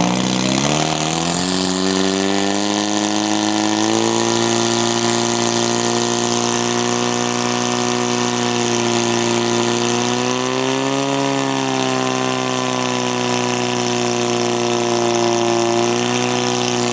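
Engine of a portable fire pump running at high revs: it speeds up over the first couple of seconds, then holds a steady high note with slight wavers as it pumps water out through the hoses to the jets.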